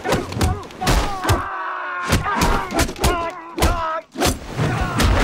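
Film fight sound effects: a quick run of a dozen or so punch and kick impacts, with the fighters' shouts and grunts between them.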